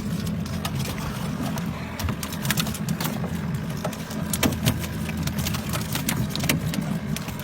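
Boat motor running steadily at high revs, with scattered clicks and knocks over it.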